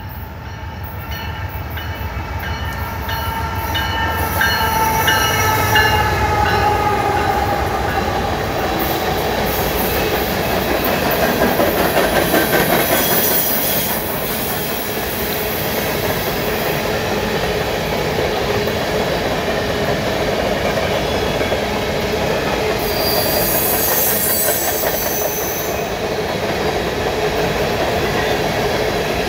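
A diesel-hauled coal train passing close by. The locomotive's engine rumbles as it approaches and goes by, then a long string of coal gondolas rolls past with steady wheel and rail noise. High-pitched wheel squeal comes twice, about halfway through and again near the end.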